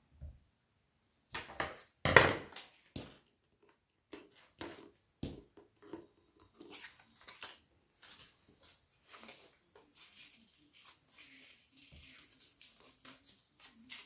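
Hands handling a paper photo card and paper embellishments on a notebook: light rustles and small taps, with one louder knock about two seconds in.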